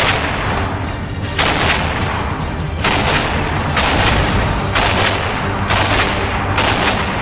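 12-gauge shotgun blasts, about seven in a row roughly a second apart, over background music.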